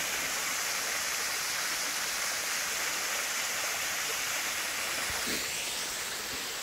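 Small waterfall spilling over a rock ledge into a pool: a steady rush of falling water.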